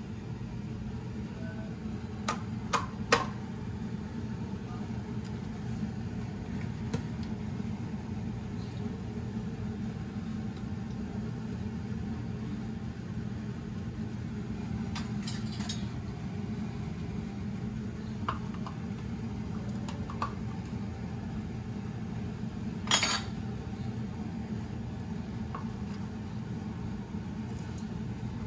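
Dishes and kitchen utensils clinking and knocking now and then over a steady low hum, with the sharpest clatter about 23 seconds in.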